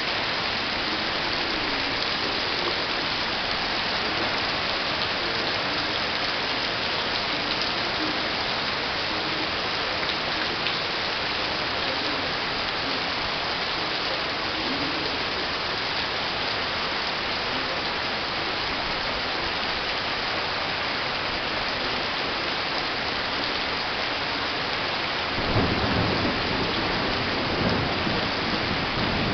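Heavy downpour: an even, steady hiss of rain falling on the garden. About 25 seconds in, a deep rumble joins it and the sound grows a little louder.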